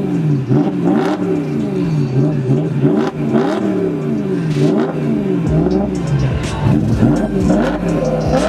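BMW E92 M3's 4.0-litre V8 being revved while standing still, in quick repeated blips, the engine note rising and falling about once a second.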